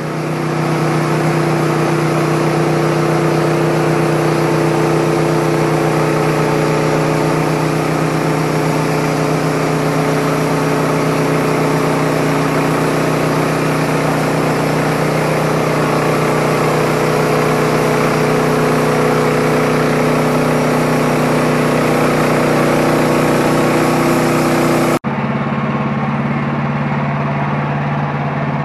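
Wood-Mizer LT15 portable band sawmill running at a steady speed as its band blade cuts along a dry eastern red cedar log, the engine note holding even under the load with a hiss over it. About 25 seconds in the sound changes abruptly to the engine running with much less hiss.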